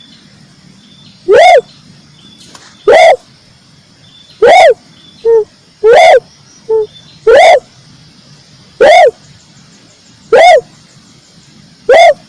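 Red turtle dove (red collared dove) cooing: eight loud, identical short arched coos, evenly spaced about a second and a half apart, with two shorter, lower notes between them.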